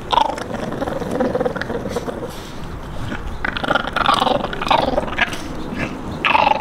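French Bulldog puppies growling in bouts as they tear at and chew a whole raw chicken together: growling over shared food. The growls come near the start, again from about halfway through, and once more near the end.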